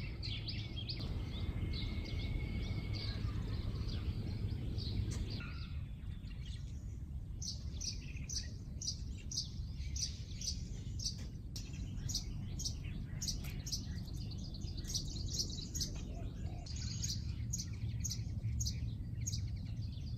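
Small birds chirping, a run of short high notes that settles into a repeated chirp about twice a second, over a steady low background rumble.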